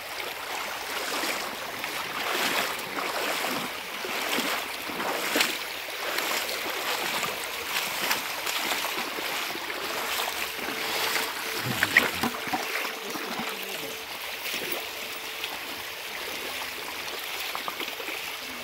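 Wading footsteps through a shallow, stony river: water splashing and sloshing around the legs with each step, over the steady rush of the current. A single sharper knock stands out about two-thirds of the way through.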